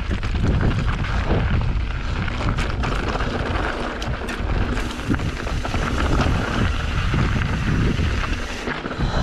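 Mountain bike riding down a rocky, gravelly dirt trail. Wind buffets the microphone with a heavy rumble, and tyres crunch over loose rock while the bike rattles with many small knocks and clicks.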